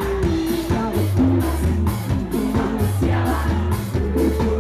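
Live band music: a singer's voice over drums and a bass line with a steady beat.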